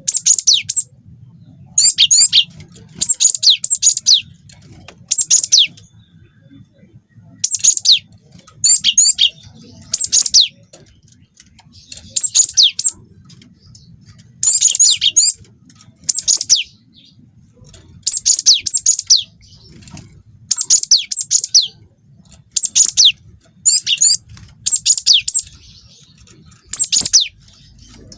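Cinereous tit (gelatik batu) singing: short, high-pitched bursts of rapid notes, repeated every one to two seconds over a faint low hum.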